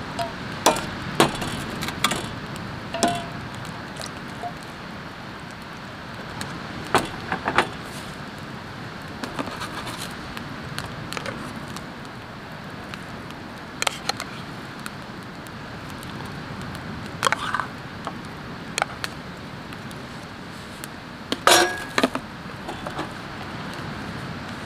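Metal tongs and utensils clicking and clinking against a yellow aluminium pot and bowls in scattered taps, a few ringing briefly, over a steady background hiss.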